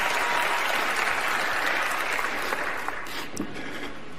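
Large audience applauding, the applause thinning out and fading over the last second or so.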